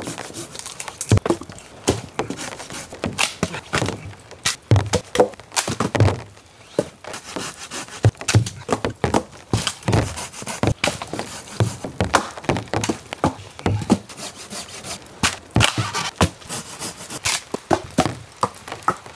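Wet wooden branches and sawn log rounds knocking and cracking together as they are handled and piled: a quick, irregular run of woody thunks and clicks.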